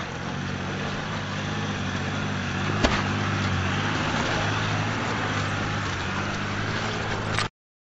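Mercedes-Benz G-Class engine running steadily at low revs while the vehicle crawls over rocks, with one sharp knock a little under three seconds in.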